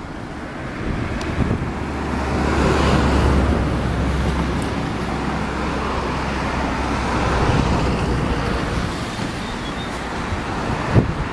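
Road traffic noise with wind on the microphone. A vehicle's low engine hum comes in about two seconds in and fades after about five seconds.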